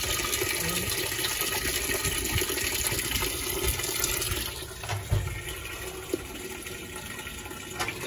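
Whirlpool top-load washer filling: a stream of water from the inlet valve pours steadily into the empty drum. The flow is strong, a sign that the water valve's replaced solenoid coil is working again.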